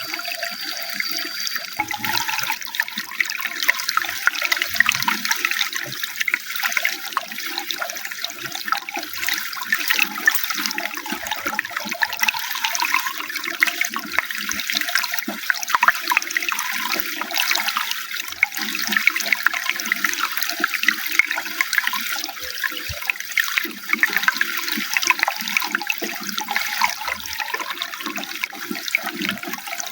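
Running water splashing steadily, a continuous rush with many small splashes and gurgles.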